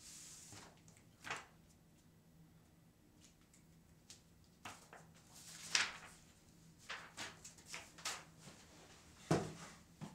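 Sheets of paper rustling and being handled at a desk, in short scattered bursts with a few light knocks, and a louder dull thump near the end.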